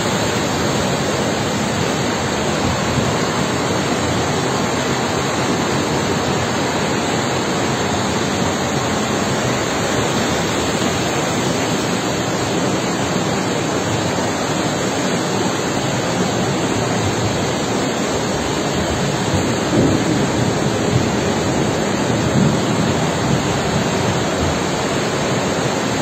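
Muddy floodwater of a swollen river rushing past, carrying cut logs downstream: a loud, steady, unbroken noise.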